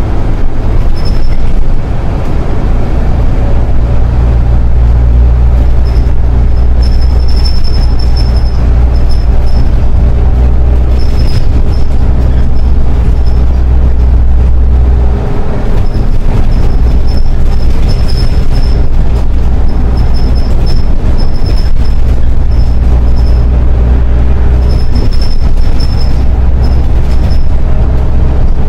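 Solaris Urbino 12 IV city bus driving: a loud steady low drone with a faint whine, which shifts about halfway through, and an on-and-off high squeak.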